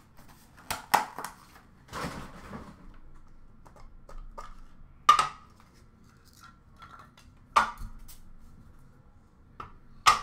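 Hands handling a trading-card box and hard plastic card cases: a few sharp clicks and knocks, a short rustle about two seconds in, and the loudest clacks near the middle and near the end.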